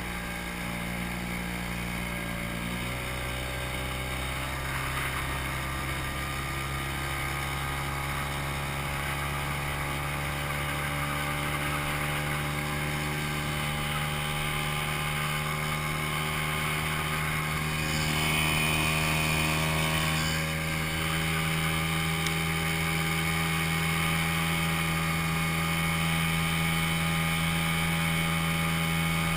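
Sears Gamefisher 7.5 hp outboard motor running under way on an aluminum jon boat, its pitch climbing in the first few seconds and then holding steady. About two-thirds of the way through comes a brief, louder rushing hiss.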